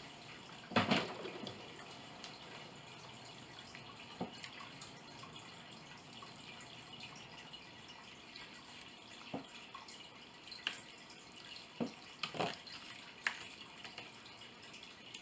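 A fork tapping and scraping on a plate in scattered sharp clicks, the loudest about a second in and several close together near the end.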